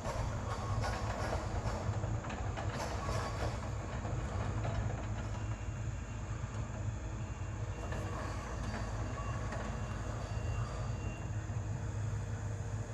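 Giant tracked excavator travelling: a steady low diesel engine drone with its steel tracks clattering and clanking continuously.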